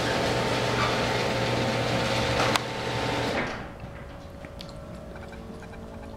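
Automatic garage door opener running as the door rises: a steady motor hum and mechanical noise, a sharp click about two and a half seconds in, then the run stops abruptly about a second later.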